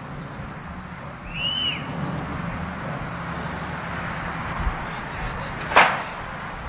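Steady outdoor rushing noise with a low hum beneath it. About a second and a half in comes one short whistled call that rises and falls, and near the end a single sharp click.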